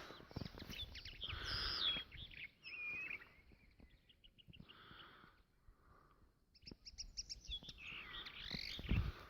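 Small birds chirping and singing in short whistled phrases and quick trills, with a gap in the calls around the middle. A low rumbling noise comes and goes underneath, loudest near the end.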